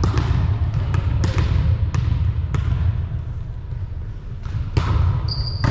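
Balls thudding and bouncing on a hardwood gym floor in sharp, irregular knocks, about one every half second to second, with a steady low hum of the hall underneath. A high sneaker squeak comes near the end.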